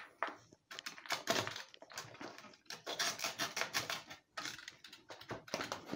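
Utility knife cutting short slits into the overhanging skateboard grip tape at the deck's edge: a run of short, crackly scraping strokes in several quick clusters.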